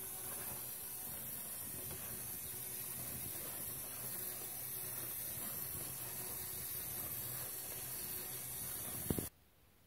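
A small LEGO electric motor and plastic gears whirring steadily as the Klann-linkage walker's legs step, with a constant hiss over it. A sharp click comes about nine seconds in, and the sound cuts off suddenly to a much quieter level.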